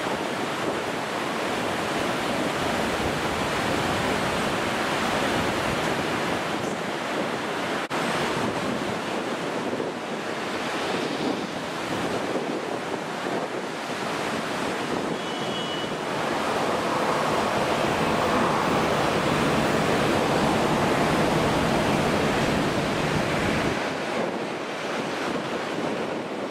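Steady rushing roar of an Airbus A350-900 airliner's Rolls-Royce Trent XWB jet engines on final approach, mixed with wind on the microphone. It grows louder from about two-thirds of the way through as the jet comes in to land.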